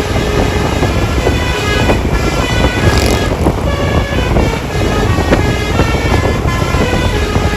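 Telolet bus horn playing a tune, its notes changing every fraction of a second, over the low rumble of the bus and wind. There is a short hiss about three seconds in.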